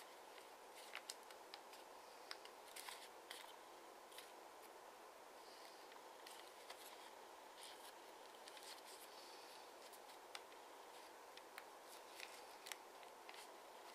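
Faint, irregular crinkles and clicks of origami paper being folded and pressed into creases by hand, over a steady low hiss.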